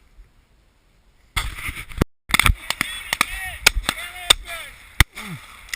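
Shotgun fired at a pheasant about a second and a half in, followed by a run of sharp cracks and knocks and a few short falling cries.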